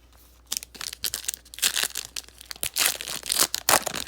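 Trading-card pack wrapper being torn open and crinkled: a run of rough, uneven tearing and crackling noises that starts about half a second in.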